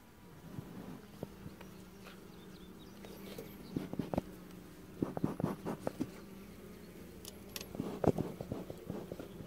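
Honeybees buzzing in the hive box, a steady low hum. Scattered clicks and knocks come over it, the loudest near the end as a gloved hand grips and lifts one of the jar feeders.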